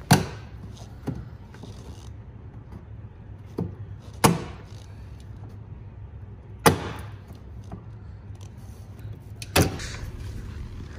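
Sharp plastic clacks and knocks as the old plastic wheel-well splash guards are pulled off the car and handled, four loud ones a few seconds apart with lighter taps between, over a steady low hum.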